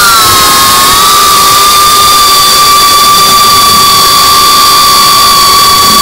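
Brushless motors and propellers of a GEPRC Cinelog35 FPV cinewhoop drone whining at a steady high pitch under steady throttle, picked up by the onboard camera's microphone, with a hiss of rushing air beneath.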